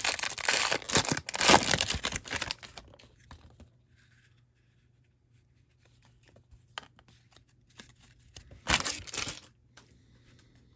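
Foil wrapper of a jumbo Topps baseball card pack being torn open, with loud crinkling for the first couple of seconds. After that come only faint small ticks as the stack of cards is handled, then a brief rustle of cards and wrapper near the end.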